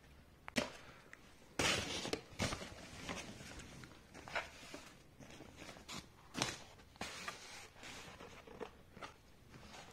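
Paper rustling and crinkling, with a few sharp knocks, as a cardboard takeaway pizza box is handled out of its paper bag on newspaper.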